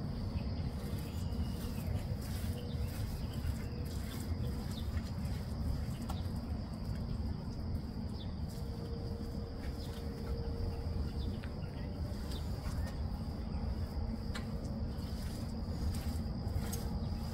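Paint roller on an extension pole being rolled through wet textured terrazzo-effect paint on a concrete floor. Behind it there is a steady high-pitched insect drone and a low, steady outdoor rumble.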